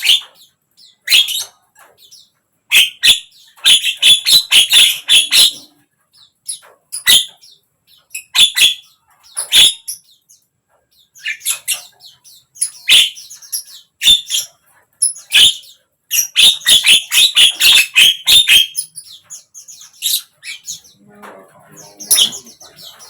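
Javan myna (jalak kebo) calling in bursts of harsh, rapid chattering notes, with short pauses between the bursts.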